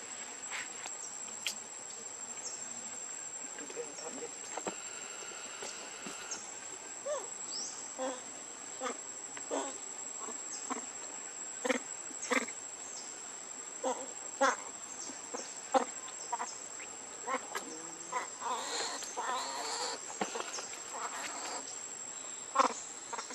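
Steady high-pitched insect drone, with short sharp clicks and chirps over it every second or so.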